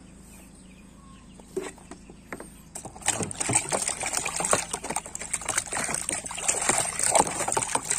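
Water splashing and sloshing in a tub of soapy water as a hand scrubs a toy, in quick irregular strokes that start about three seconds in after a quieter stretch.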